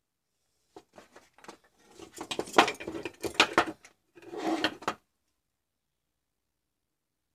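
Clicks and clatter of a mains cable, metal crocodile clips and a charger circuit board being handled on a workbench, building up from about a second in and stopping abruptly about two-thirds of the way through.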